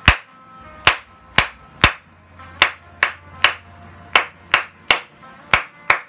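One person clapping hands, about a dozen sharp claps at an uneven pace. The claps trigger the sound-activated mode of LED par lights.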